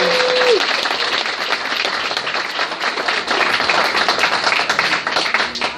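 Audience applause, dying away near the end.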